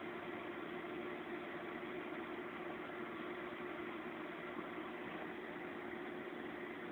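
Steady background hum with one constant low tone, unchanging throughout.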